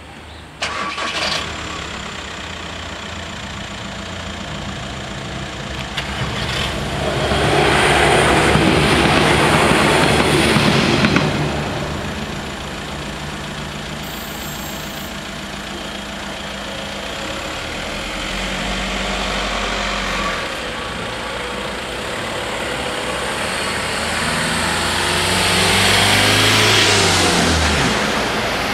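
Siemens Desiro diesel railcar passing over the level crossing, loudest for about four seconds near the middle. Near the end, cars drive off over the crossing, one engine's pitch falling as it passes.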